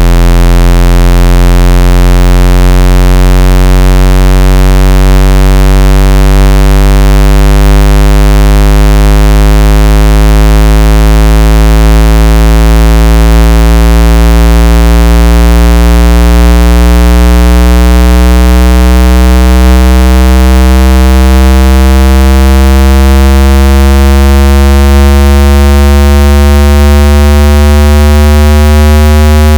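Square-wave test tone slowly sweeping upward in pitch: a loud, low, buzzy tone that climbs gradually and steadily.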